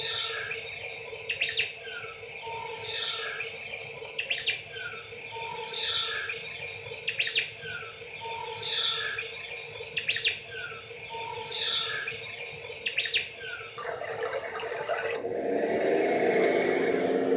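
Looping bird-chirp sound effect: the same short phrase of chirps and clicks repeats about every second and a half over a steady hum. Near the end it gives way to a rougher, louder sound that cuts off suddenly.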